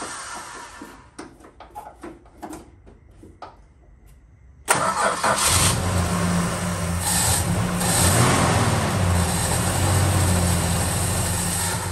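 Valiant Charger's engine starting: a few clicks in a lull, then it cranks and catches suddenly about five seconds in and keeps running, with a rising rev around eight seconds. The owner afterwards finds a big vacuum leak on it.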